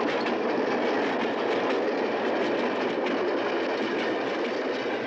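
Train running over the rails: a steady rushing rattle of wheels on track with faint rapid clicks.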